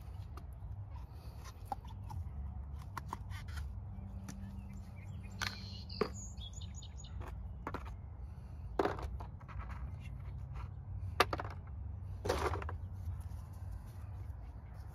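Small plastic tubs being handled and their lids pried off, then set down on cardboard: a few sharp clicks and taps, with a short rustle near the end, over a low steady background rumble.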